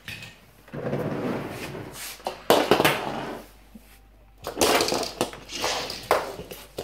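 Knocking and rustling as die-cast toy cars are handled on a hard floor, with a sharp knock about two and a half seconds in.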